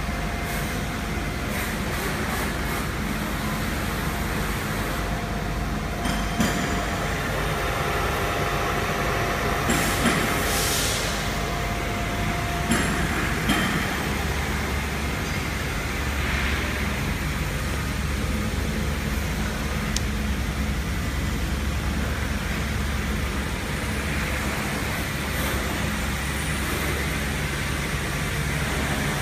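Chencan 1325 CNC router running: a steady machine drone with a low hum, broken by a few brief knocks in the first half.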